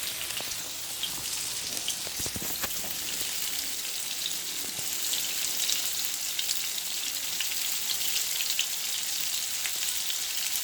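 Tofu pieces sizzling and crackling steadily in hot oil in a frying pan, with a few sharper pops or utensil ticks about two to three seconds in.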